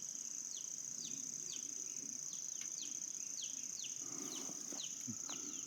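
A bird's short, falling chirps repeated about twice a second over a steady, high-pitched drone of insects in the summer grass and flowers.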